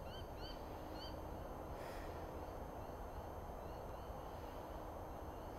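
A bird calling in the bush: a run of short, arching chirps, about two a second, clearest in the first second and fainter again in the middle, over a steady low background rush.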